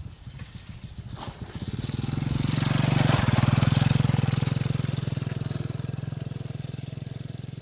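A motorcycle engine passing by off-camera: it grows louder from about a second in, is loudest around three to four seconds in, then slowly fades away.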